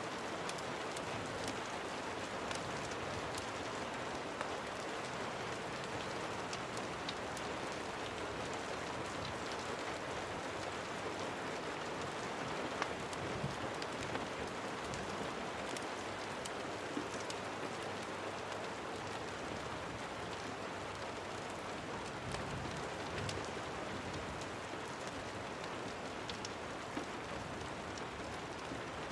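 Steady rain falling, an even wash of sound sprinkled with many small sharp ticks.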